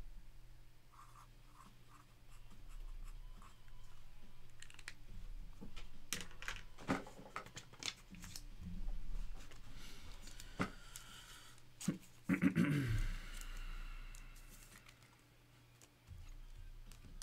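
Faint desk handling sounds: a black marker uncapped and written with on a trading card, and cards shuffled and set down, with scattered clicks and scratches. A short, louder rustle comes about twelve seconds in.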